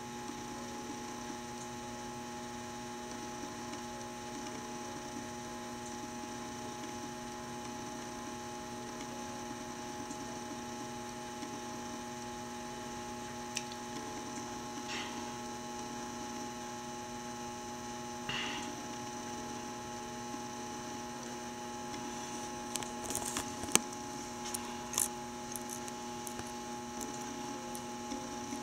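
Steady electrical hum made of several held tones. A few sharp clicks and knocks come near the end.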